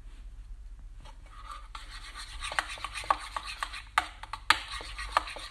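Metal spoon stirring thick mayonnaise dressing in a bowl: a wet scraping that starts about two seconds in. Sharp clicks of the spoon knocking against the bowl run through it, the loudest twice around four seconds in.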